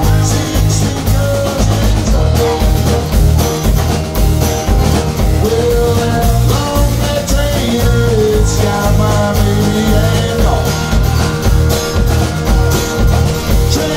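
Live rock and roll band playing: acoustic guitar strumming, electric guitar, and a drum kit keeping a steady beat, with harmonica playing over it.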